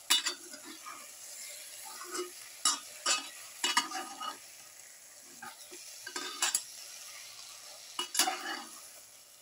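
Steel spatula scraping and knocking against a steel pot in irregular strokes as chicken pieces are stirred into a thick onion-tomato masala, over a steady faint sizzle of the frying mixture.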